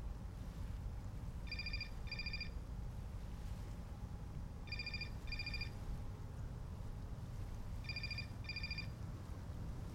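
A telephone ringing electronically in double rings, three pairs about three seconds apart, over a steady low rumble of wind.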